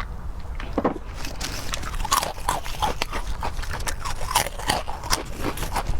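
A person chewing food close to the microphone, with rapid wet smacking and crunching clicks that grow busier about a second in.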